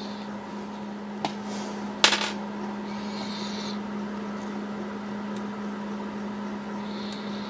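Handling noises as a brass clock movement is freed and lifted out of a wooden clock case: a small click about a second in and a louder, sharp click about two seconds in, with brief rustling later, over a steady low hum.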